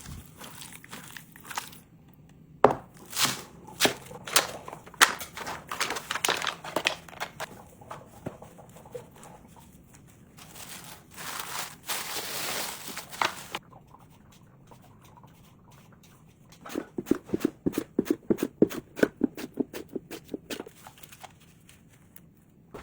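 Kitchen food-prep handling sounds: scattered clicks and knocks with crinkling, a few seconds of rustling in the middle, then a quick, even run of knocks, about five a second, near the end.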